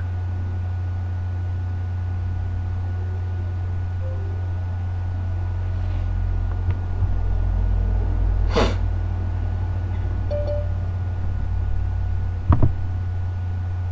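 Steady low hum of an open microphone's background, with a short noisy puff about eight and a half seconds in and a brief knock near the end.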